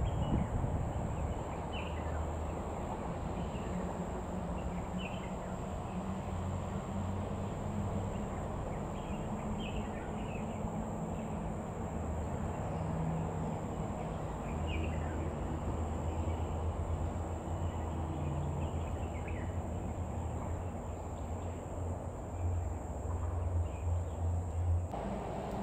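Outdoor ambience of a steady low rumble with a thin, constant high insect drone, and scattered brief bird chirps. The low rumble grows louder and uneven near the end.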